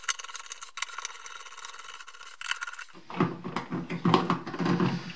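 A screwdriver turning a wall switch's mounting screw into the electrical box, starting it. Faint small ticks for the first three seconds, then louder, irregular clicks and knocks of metal on metal.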